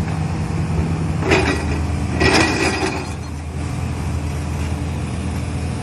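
An engine running steadily, with two short hissing, scraping bursts about a second and two seconds in.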